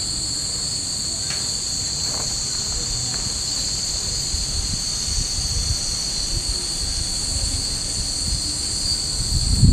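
Chorus of cicadas in the trees, a steady high-pitched shrill hiss, over a low background rumble that grows louder right at the end.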